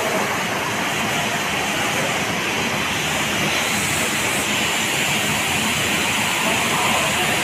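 Snack-frying production line machinery running, a steady, even rushing hiss with no clear rhythm.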